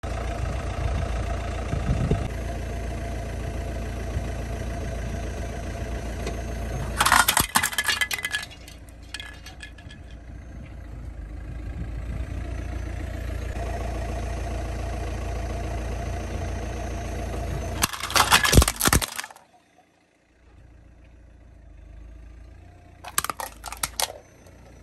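A car's engine runs slowly while its tyre rolls over a plastic toy helicopter, which cracks and crunches loudly as it breaks. The crunching comes about seven seconds in and again about eighteen seconds in, with a shorter run of cracks near the end.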